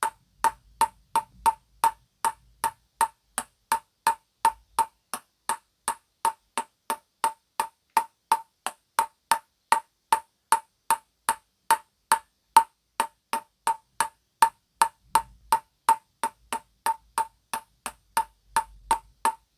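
A ping-pong ball bounced repeatedly on a table tennis paddle, in a steady rhythm of about three sharp hollow clicks a second.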